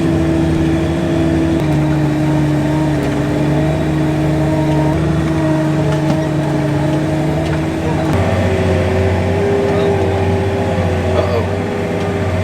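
Tractor engine running under load, heard from inside the cab, pulling a grain cart of corn through deep mud. Its steady pitch shifts twice, about a second and a half in and again about eight seconds in.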